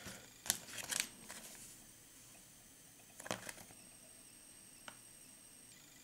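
Faint rustling and clicking of fingers twisting black dubbing onto fly-tying thread, in two short bursts: one about half a second in and one about three seconds in.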